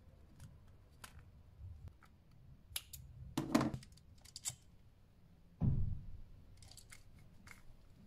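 Metal spring o-ring buckle and its swivel clicking and clinking as the leather bracelet is handled, a scatter of sharp clicks with the loudest cluster about three and a half seconds in, and a dull knock just before six seconds.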